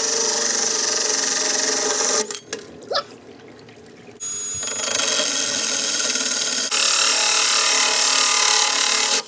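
Cordless drill spinning a hole saw as it grinds through glass, with water running over the cut to cool it. The drilling stops about two seconds in and starts again about four seconds in.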